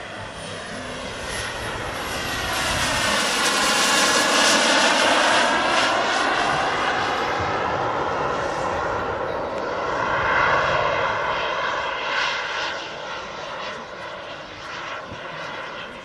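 Turbine jet engines of a giant radio-controlled Concorde model flying past: a loud jet roar and whine that builds to its peak about four seconds in, swells once more around ten seconds, then fades as the model moves away.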